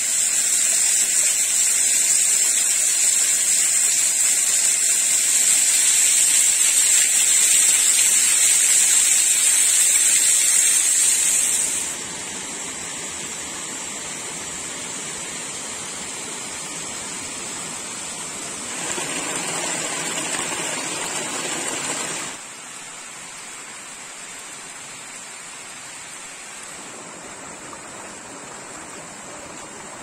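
Steady rush of a mountain stream and waterfall. Loud for the first twelve seconds, then dropping to a softer flow, with a short louder stretch about twenty seconds in.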